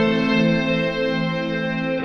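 Background music: sustained instrumental chords with a slow pulse, fading toward the end of the video.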